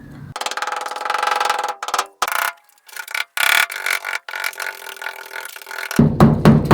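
A small power tool whirring, in one long run, then in short bursts, then steadily again. Near the end music with a steady drum beat comes in.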